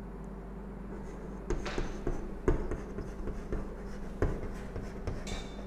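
Chalk tapping and scraping on a chalkboard as a chemical formula is written: irregular short strokes and taps, over a low steady hum.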